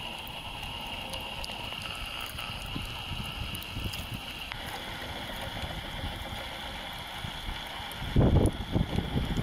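Outdoor shoreline ambience: wind buffeting the microphone over a steady hiss, with heavier gusts about eight seconds in.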